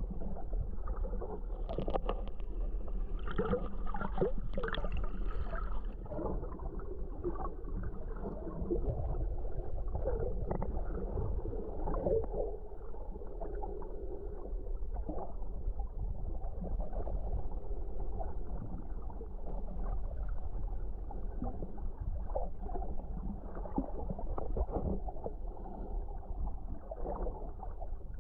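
Muffled underwater water movement and gurgling heard through a submerged GoPro housing while snorkelling: a steady low rumble with irregular swells, busier with a little higher splashing sound a couple of seconds in.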